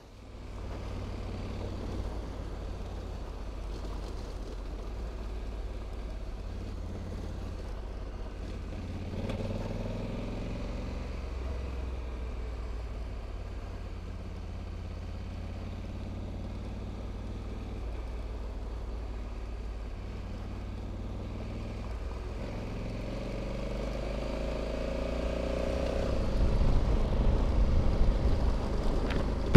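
Honda Africa Twin DCT's parallel-twin engine running as the motorcycle rides along a dirt road, over a steady low rumble. The engine note rises twice as the bike accelerates, once about a third of the way in and again near the end, where it grows louder.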